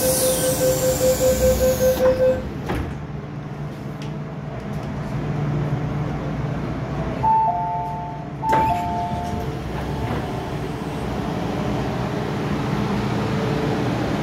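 MTR M-Train door-closing warning beeping rapidly at one pitch, ending with a knock as the doors shut. Later two falling two-note chimes sound, over the steady low hum of the train standing at the platform.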